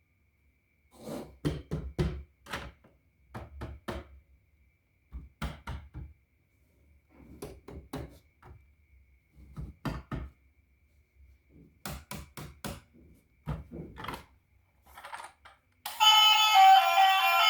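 Irregular clusters of short knocks and clicks from objects being handled and set down, in groups of two to five, with gaps between. Music with guitar starts loudly near the end.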